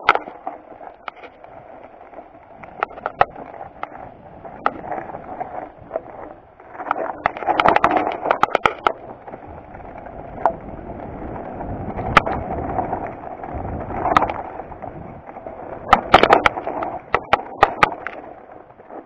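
Mountain bike rolling fast down a rocky dirt trail: tyres grinding over gravel and loose stones, with frequent sharp clatters and knocks of the bike over rocks, heaviest about eight and sixteen seconds in.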